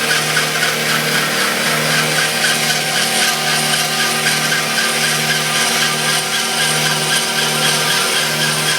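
CNC cutting machine cutting honeycomb board: a steady, loud cutting noise with a low hum underneath that breaks off and restarts about every 0.8 seconds.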